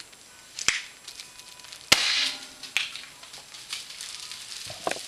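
A 16-inch handheld twist-release confetti cannon firing: one sharp, loud pop about two seconds in, followed by a short rushing hiss as the charge and confetti blow out, then a few light clicks.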